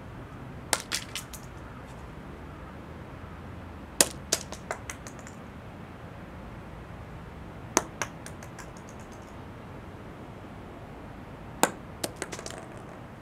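Acorns falling one at a time onto stone paving, each landing with a sharp click followed by a few quicker, smaller clicks as it bounces; four drops a few seconds apart.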